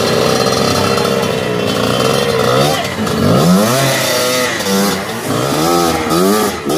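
Enduro dirt bike engine running at fairly steady revs, then revved up and down in quick repeated blips from about three seconds in as the bike is worked over boulders.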